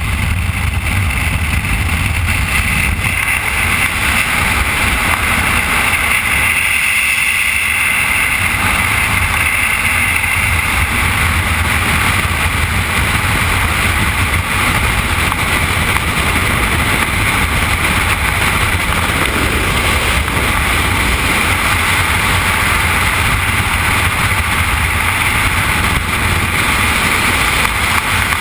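Loud, steady wind noise buffeting a skydiver's camera microphone in freefall, with no change in level through the fall.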